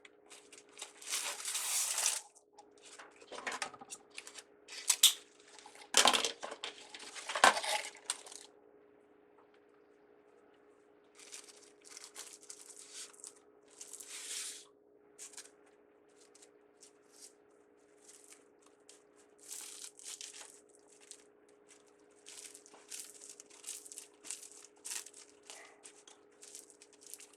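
Ribbon being handled and crinkled by hand while a bow is gathered, in irregular rustling, crackling bursts that are loudest in the first eight seconds and sparser after. A faint steady hum runs underneath.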